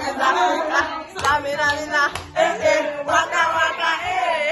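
Several voices singing and chanting loudly together over party music, their pitch wavering up and down.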